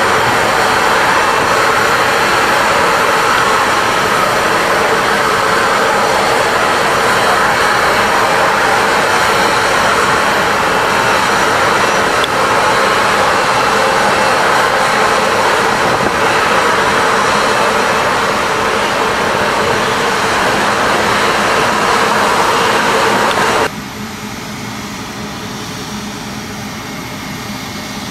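Jet engines of an Airbus A350 at take-off thrust: a loud, steady roar through the take-off roll on a wet runway and the lift-off. About four seconds before the end the roar cuts off abruptly, leaving a quieter steady hum.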